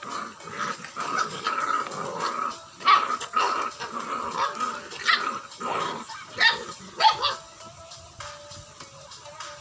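Terrier-cross dog barking and growling in a run of sharp barks, the loudest about three and seven seconds in, then quietening near the end.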